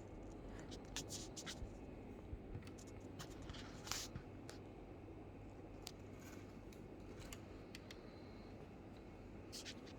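Faint scattered clicks and rustles of hands handling a 1:18 scale diecast model car and its packaging. There is a cluster of small clicks about a second in and a louder rustle about four seconds in.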